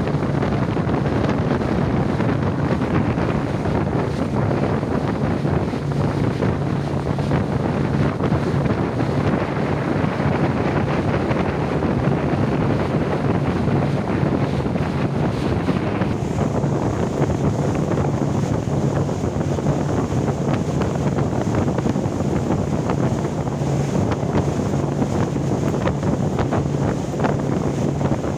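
Steady rain and wind over open sea water, with wind buffeting the microphone and a steady low hum underneath. A faint high whine joins about halfway through.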